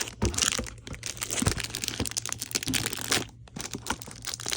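Plastic shrink-wrap crinkling as it is peeled off a book, an irregular run of crackles with a brief lull a little past three seconds in.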